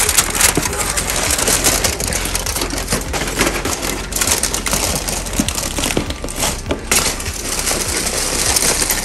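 Aluminium foil crinkling and rustling as it is pulled open from around the resting steaks, a dense crackle of many small sharp clicks.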